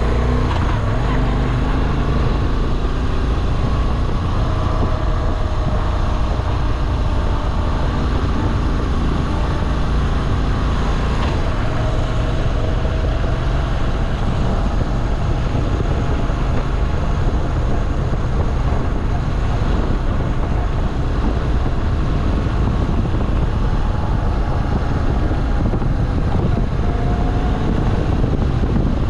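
Moto Guzzi V7 Classic's air-cooled transverse V-twin running under way, its note rising and falling gently with the throttle, under heavy wind noise on the microphone.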